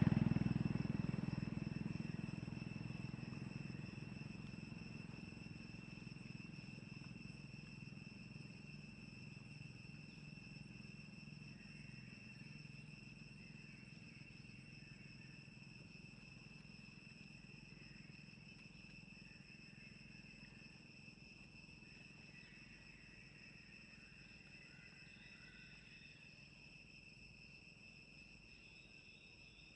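Insects droning steadily in the forest, a high even tone with fainter higher tones above it. Over the first several seconds a low rumble fades away beneath it.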